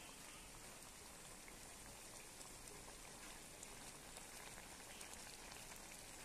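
Near silence: a faint steady hiss with scattered tiny crackles.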